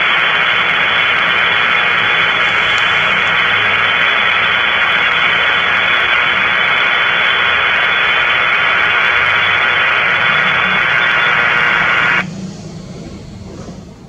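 Loud hiss of static from an airband radio receiver, cut off abruptly about twelve seconds in, leaving only a faint low background.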